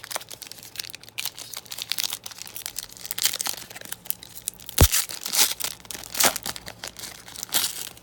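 A football trading card pack's wrapper being torn open and crinkled by hand, with dense crackling throughout. A single heavy thump about five seconds in is the loudest sound.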